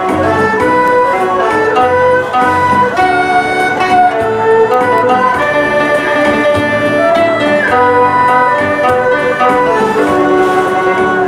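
Erhu and a pear-shaped Chinese lute playing a melody together, unamplified: the erhu's bowed line sustains and slides between notes while the lute plucks alongside it.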